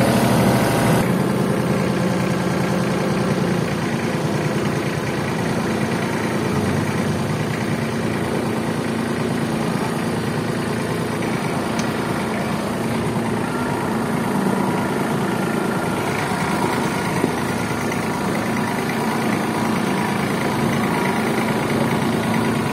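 Mitsubishi compact tractor's diesel engine running steadily, heard from the driver's seat.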